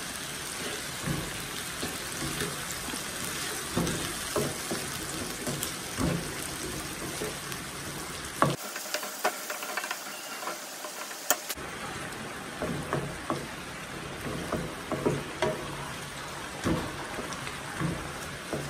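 Vegetables sizzling in oil in a nonstick wok while a wooden spatula stirs them, with irregular knocks and scrapes of the spatula against the pan.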